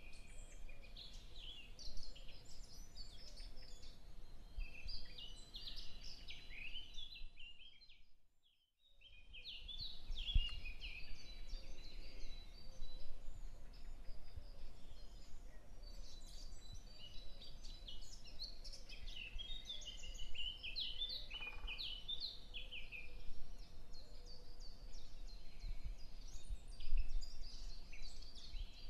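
Many small birds chirping continuously in the background, over a faint steady hum. The sound drops out briefly about eight seconds in and then returns.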